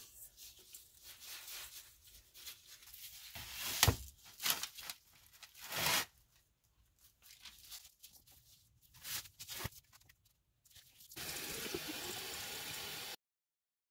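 Bath bomb powder being packed into a mold and bath bombs turned out of it: scraping and crunching of dry powder with sharp knocks, the loudest about four seconds in. Near the end, a bath bomb fizzing in a bowl of water gives a steady hiss for about two seconds, which cuts off suddenly.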